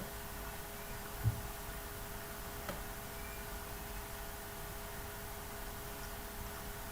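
Steady electrical hum with a faint background hiss, broken by one soft low thump about a second in and a faint click near three seconds.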